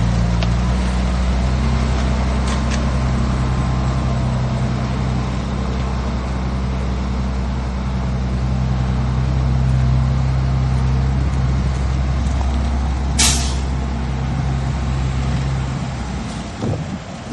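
Heavy diesel earthmoving engine running steadily under load. About 13 seconds in there is a short, sharp hiss of air, then the engine sound falls away near the end.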